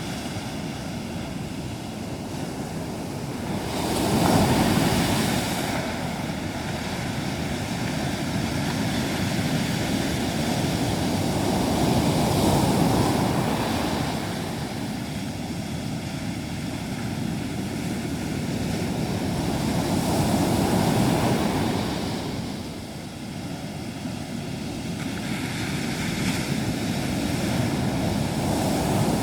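Sea surf washing onto a sandy beach: a steady rush of breaking waves that swells about every eight seconds.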